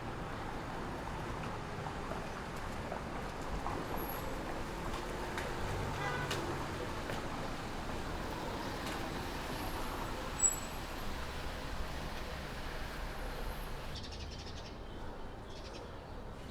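Steady outdoor city ambience, with a brief animal call about six seconds in and a single sharp click a little later.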